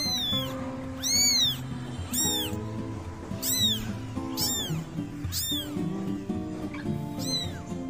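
Newborn kitten crying, a string of high-pitched meows roughly once a second, each rising then falling in pitch: the isolation call of a kitten left without its mother. Background music plays underneath.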